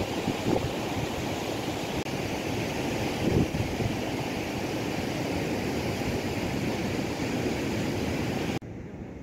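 Wind rushing over the microphone, a steady rumbling hiss with a few stronger gusts. It drops abruptly to a quieter, duller background near the end.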